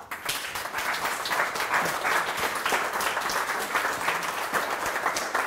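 Audience applauding: many hands clapping that break out all at once and keep going steadily.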